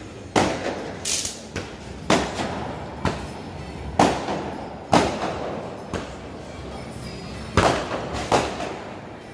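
Firecrackers bursting one after another: about a dozen sharp bangs at irregular intervals, each with a short echoing tail, the loudest about four, five and eight seconds in.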